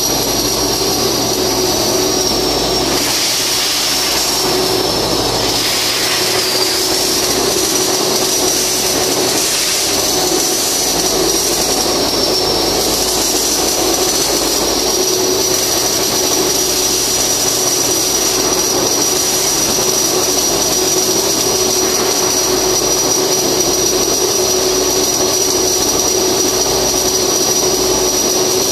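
Steady machinery roar with a constant high whine, holding even throughout.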